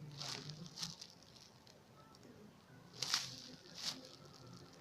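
Rustling handling noise in two short bursts, about a second apart from each other's start, once early and again about three seconds in, as a foam squishy toy is picked up and turned in the hands.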